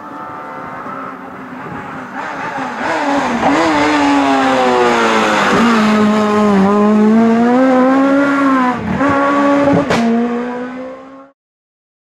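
Rally car engine at high revs as the car comes through a hairpin, the pitch dipping and climbing again several times as it lifts off and shifts gears. A single sharp crack near the end, and the sound cuts off abruptly about a second later.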